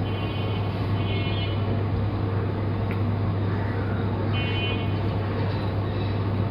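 Steady urban background noise with a constant low hum, over which a few short, high-pitched bird calls sound near the start, about a second in, and again after four seconds.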